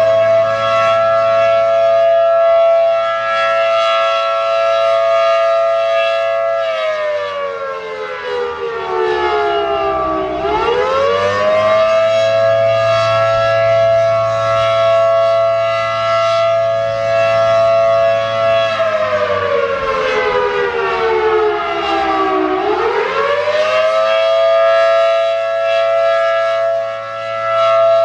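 ACA Allertor 125 rotating electromechanical siren, a 10/12-port dual-tone unit, sounding the attack (wail) signal: its chord holds high, slides down for a few seconds and climbs back up, twice. The loudness swings unevenly as gusty wind throws the sound around.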